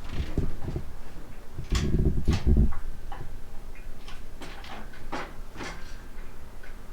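Hand-pumped hydraulic engine crane lifting a Detroit Diesel 6-71 engine: scattered metal clicks and ticks, with two spells of heavy low clunking in the first three seconds as the load shifts on the hoist.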